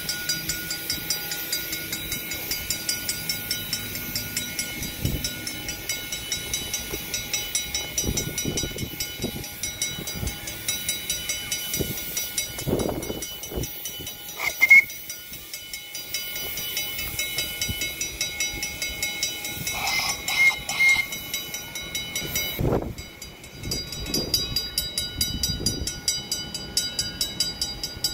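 Rail vehicle running along the track, with a regular ticking a few times a second over steady high-pitched tones. A brief sharp high squeal comes about halfway.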